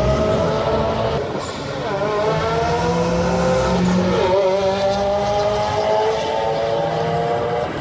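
Car engine accelerating hard through the gears. It climbs steadily in pitch and drops back sharply at two upshifts, about a second and a half in and again about four seconds in.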